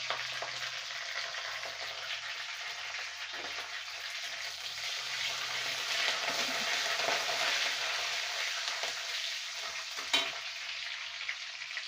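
Whole cumin, black mustard seeds, curry leaves and dried red chillies sizzling steadily in hot oil in a kadai, the spice tempering for a chutney. A single sharp click sounds near the end.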